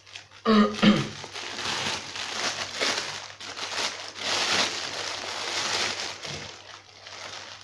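A thin plastic bread wrapper crinkling as it is pulled open and unwrapped by hand, with rustling and crackling that goes on for several seconds.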